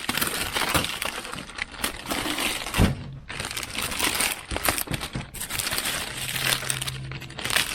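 Plastic wrapping being pulled off a new machine, crinkling and rustling unevenly, with a few sharp clicks and knocks.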